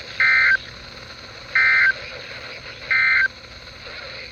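Emergency Alert System end-of-message signal: three short bursts of SAME digital data tones, about a second apart, that close the broadcast warning.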